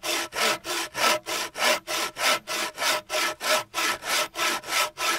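Bow saw with a dull 21-inch Bahco peg-tooth blade cutting a small log in quick, even back-and-forth strokes, about three strokes a second. The teeth are worn flat at the tips and are due for sharpening.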